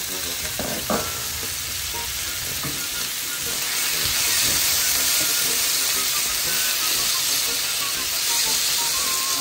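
Chicken, diced bell peppers and freshly added chopped tomatoes sizzling in a wide paella pan as they are stirred with a metal spoon, with a few spoon knocks near the start. The sizzle gets a little louder about four seconds in.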